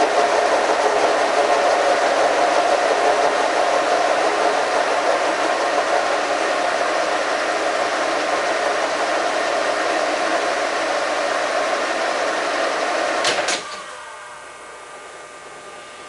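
Horizontal boring mill taking a cut in a welded connecting-rod bore with a brazed carbide boring bar: a loud, steady machining noise with a strong mid-pitched hum. About thirteen seconds in, a couple of sharp clicks come as the cut ends, and the noise drops to a much quieter steady machine hum.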